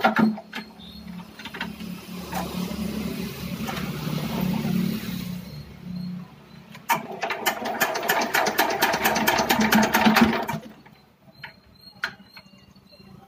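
Kirloskar Varsha air-cooled diesel engine running unevenly: a fast, even clatter comes in about seven seconds in and cuts off abruptly a few seconds later as the engine dies. The mechanic traces the engine's starting trouble to a worn bore and piston.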